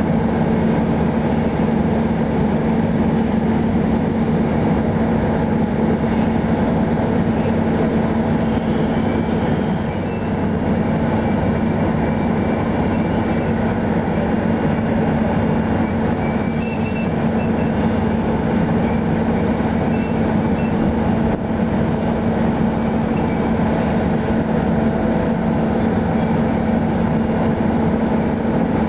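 A Kirow KRC 1200 rail crane's engine runs at a steady pitch, a constant hum that does not change. Faint, brief high squeaks come now and then over it.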